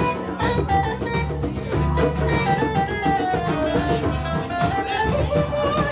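Live band music with a guitar playing a lead line of quick notes over bass and drums.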